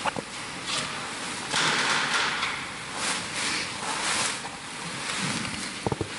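Rustling and handling noise from altar vessels (chalice and paten) being moved and wiped with a cloth, with a couple of small knocks near the start and near the end.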